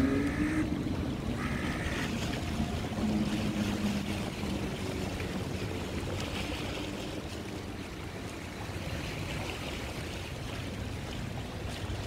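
Steady rush of wind and choppy lake water, with a low motor hum in the first few seconds.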